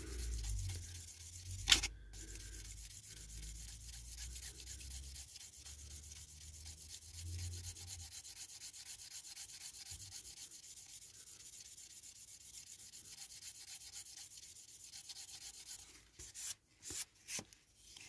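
A fine-grade nail-buffer sanding stick is rubbed rapidly back and forth over a clear plastic model-car window unit, polishing out its scuffs and pitting. The fast, steady rubbing breaks off about sixteen seconds in into a few separate strokes. There is a single knock about two seconds in.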